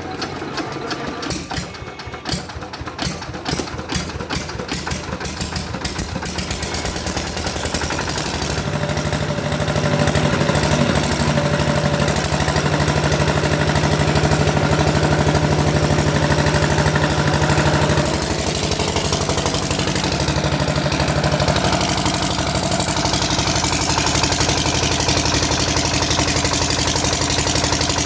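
Diesel engine of a Kirloskar 5 kVA generator running, at first with slow, separate firing beats, then picking up speed over the next few seconds to a steady, louder run. About two-thirds of the way through its sound changes and more hiss comes in.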